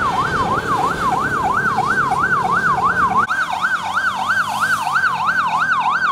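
Electronic siren sounding a fast yelp, its pitch sweeping up and down about three times a second. About halfway through, a lower background rumble drops away and the siren sounds brighter.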